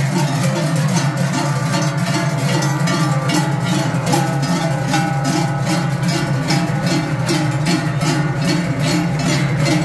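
Large Swiss cowbells swung in unison by a group of marching bell-carriers, making a dense, loud clanging in a steady rhythm.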